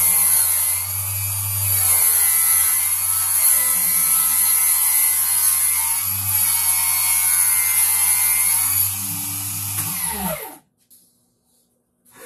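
Electric power saw running steadily with a low hum and a high whine as it cuts a board. About ten seconds in, it is switched off and winds down with a falling pitch to a stop.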